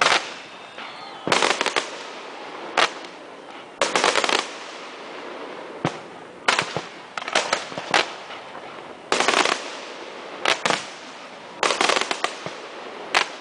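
Fireworks display: aerial shells bursting about every one to two seconds. Some go off as single bangs, others as quick clusters of cracks, each with a short echoing tail.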